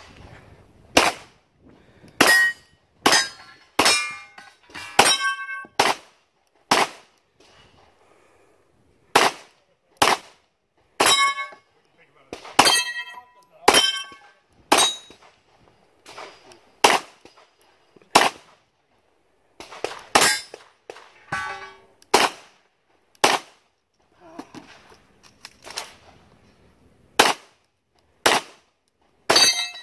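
Gunshots fired singly and in quick pairs during a multigun stage, about twenty in all with a couple of short pauses. Many shots are followed by the bright ringing clang of steel targets being hit.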